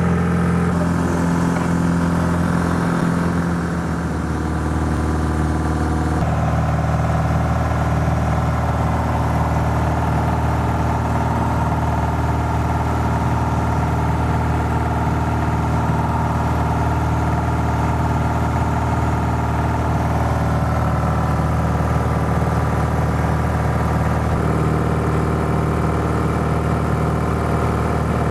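Steady drone of a single-engine light aircraft's engine and propeller heard inside the cabin in cruising flight, its tone shifting a few times.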